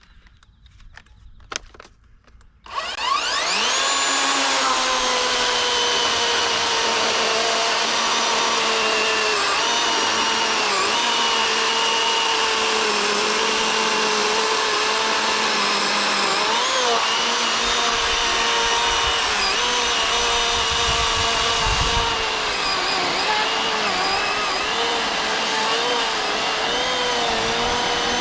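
Powerworks 60V brushless battery chainsaw spinning up about three seconds in and running with a steady electric whine while cutting oak. Its pitch dips and wobbles several times as the chain bites into the hardwood under load.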